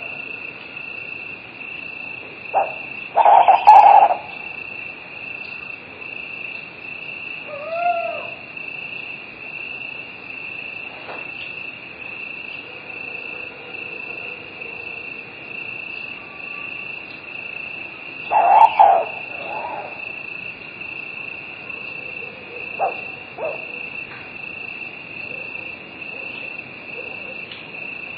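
Crickets chirring steadily in a high, unbroken band, with an owl hooting in two loud bursts, about three seconds in and again about eighteen seconds in, and a short rising-and-falling call near eight seconds.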